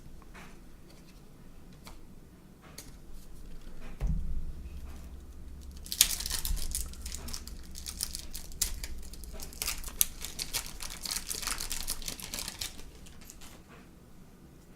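Baseball card pack's wrapper being torn open and crinkled: a dense run of crackling lasting about seven seconds. A low thump about four seconds in comes before it, with faint clicks of cards being handled before and after.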